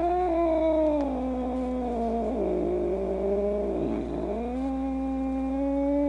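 A cat caterwauling: one long unbroken yowl whose pitch slides slowly down, sags and wavers about four seconds in, then rises again and holds steady.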